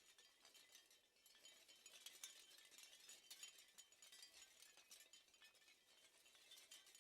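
Seashell wind chime, the shells clinking and rattling against one another in a quiet, continuous stream of small, light, high-pitched clicks.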